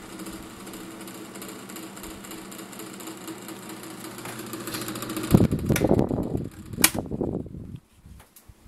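1987 Ku Hsing 12-inch table fan running, its motor humming with a fast clacking rattle from worn bearings that have slop up and down. About five seconds in come louder knocks and two sharp clicks, and the sound drops off shortly before the end.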